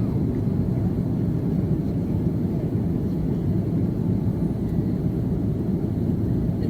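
Steady cabin noise inside an Airbus A330-300 from its two General Electric CF6-80E1 turbofan engines and the rushing air, a deep, even rumble with no change in pitch.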